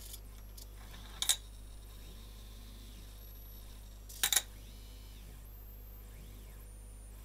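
Small geared stepper motors of a robot arm whining faintly, the pitch rising and falling with each move, over a steady low hum. Two short sharp clicks, the loudest sounds, come about a second in and again about four seconds in.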